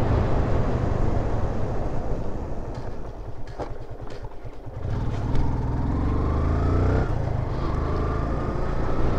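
Motorcycle engine running while riding. About three seconds in it drops to a slow, low putter as the bike slows. It picks up again about five seconds in, its pitch rising, breaking off briefly about seven seconds in, then rising again as the bike accelerates.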